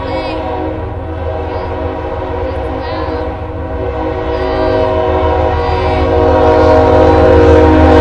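Train horn holding a long, steady chord of several tones over a low rumble, growing louder near the end.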